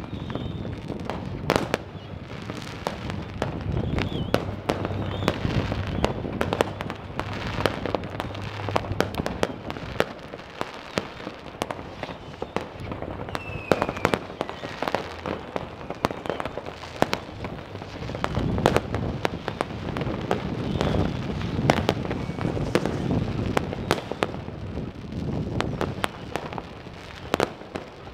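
Fireworks and firecrackers going off without pause: many sharp bangs and crackles overlapping, with a couple of faint rocket whistles.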